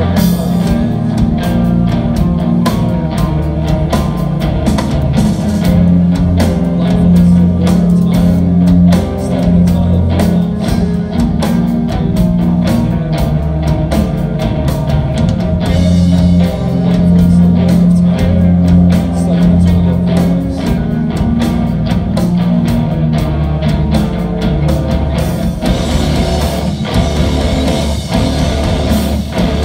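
Live rock band playing loud through a PA: distorted electric guitars, bass guitar and drums, with steady drum hits. Near the end the high range fills with a denser wash of cymbals.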